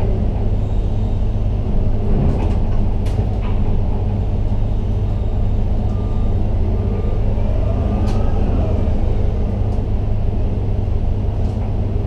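Ship-to-shore container crane's drives heard from inside the operator's cab: a steady low rumble and hum. About halfway through, a motor whine rises and then falls as the hoist lifts the spreader, with a few light clicks and a short run of faint beeps.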